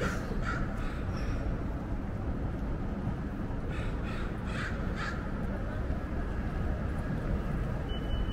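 Crow cawing: two runs of about four short caws, one at the start and one about four seconds in, over a steady low rumble of city traffic. A thin steady high tone comes in near the end.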